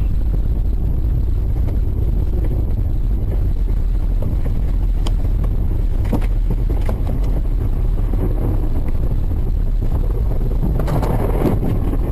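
Steady low rumble of a moving car heard from inside the cabin, road and engine noise mixed with wind noise. There are a few faint knocks in the middle and a louder noisy swell near the end.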